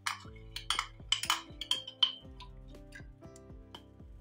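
A metal spoon clinking and scraping against the inside of a ceramic mug, a quick run of light clinks in the first half and a few more after, as cornstarch slurry is scraped out into a saucepan. Soft background music plays underneath.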